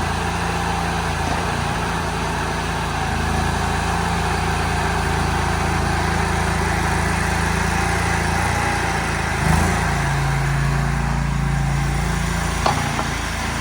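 Mini excavator's Rato 29 hp two-cylinder gasoline engine running steadily. Its note changes about two thirds of the way in, with a short knock, and a sharp click sounds near the end.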